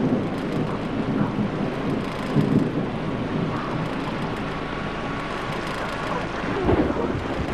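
A steady, even hiss, with a deep low rumble a little before the end.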